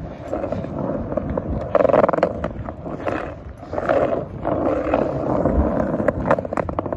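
Phone microphone rubbing and brushing against a fleece hoodie, with wind rumble. The noise swells and fades unevenly, with a few short clicks near the end.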